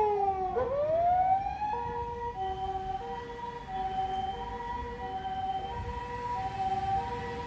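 Japanese ambulance's electronic harmonic siren. A falling wail sweeps down, rises again, then changes about two seconds in to the alternating two-note hi-lo "pee-poh" pattern, which holds steady and is quieter than at the start.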